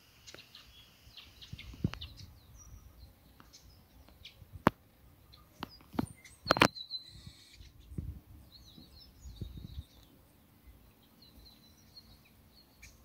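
Wild birds chirping and calling, with several sharp clicks or knocks. The loudest knocks come about four and a half and six and a half seconds in.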